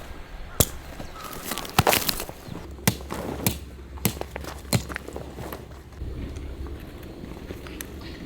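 Irregular sharp knocks and clicks, several within a few seconds, over a faint low rumble.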